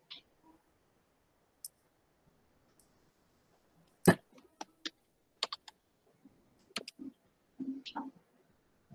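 Irregular sharp computer-mouse clicks, about a dozen, the loudest about four seconds in, with a few soft knocks near the end.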